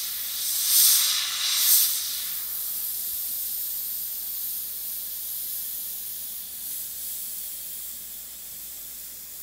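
Iwata HP-CS Eclipse gravity-feed airbrush spraying paint: a steady hiss of air from the nozzle, with two louder surges about one and two seconds in, then growing gradually softer.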